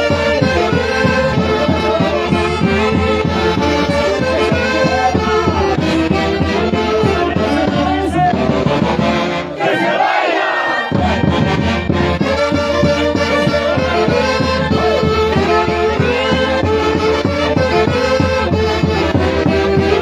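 Live Peruvian orchestra playing festive Santiago-style music, with wind instruments carrying the melody over a steady bass. About halfway through, the bass drops out for about a second while the higher parts play on alone, then the full band comes back in.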